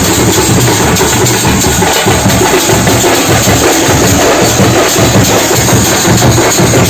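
Loud, dense drumming from a festival drum ensemble, beating a steady rhythm without a pause.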